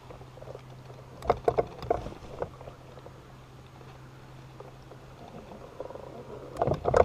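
Electric trolling motor running with a steady low hum. Several sharp knocks and clatters come about a second in and again near the end.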